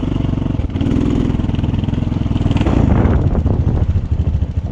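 Single-cylinder trail motorcycle engine running as the bike rides along, the engine note steady with a brief rise in effort about three seconds in. The bike is likely the rider's GPX 250.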